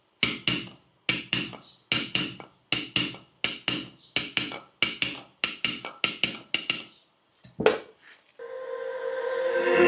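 A small hammer tapping on a steel shaft in quick pairs, a pair about every 0.7 s, each tap ringing briefly: the shaft and its bearings are being driven home in a 3D-printed waterjet housing. The tapping stops near the end and a rising swell of background music with a steady tone comes in.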